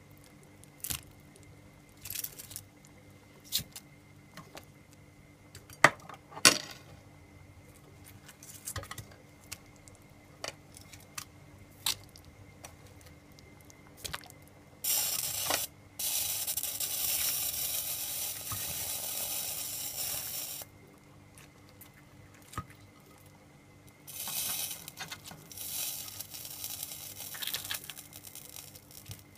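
Pieces of fried mackerel being laid by hand into a pot of hot sauce: soft wet squelches and scattered sharp clicks against the pot. There are two longer stretches of hissing, one lasting about five seconds around the middle and a shorter one near the end.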